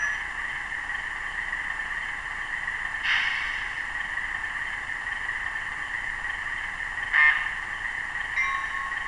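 LokSound Select sound decoder in an Atlas RS-1 model locomotive, playing a recorded Alco 244 12-cylinder diesel idling through its small speaker. A short hiss comes about three seconds in and a brief sharp sound about seven seconds in. Near the end, bell strikes begin at about one a second.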